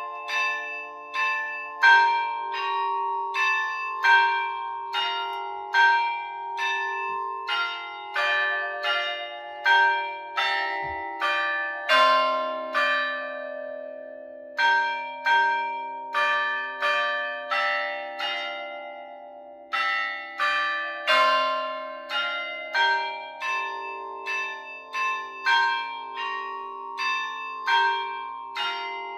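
Church tower bells playing a hymn tune, one note struck at a time about twice a second, each bell ringing on under the next, with short pauses between phrases.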